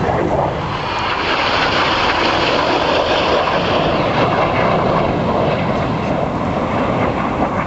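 Turbofan jet engines of BAE Hawk T1 aircraft flying past, a loud rushing jet noise that swells for a few seconds and then eases off.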